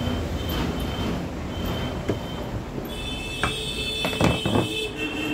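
A screwdriver working a screw out of a plastic clothes iron's body, with a few sharp clicks and scrapes in the second half, over a steady mechanical rumble.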